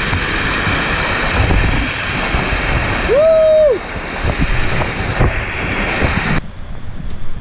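Waterfall water rushing as a loud, steady wash of noise that drops off suddenly about six seconds in. About three seconds in, a short tone rises and falls once over it.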